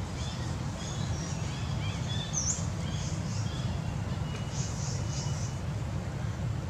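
Outdoor forest ambience: small birds chirping in short high calls, with a quick rising chirp about two and a half seconds in and a cluster near the end, over a steady low rumble.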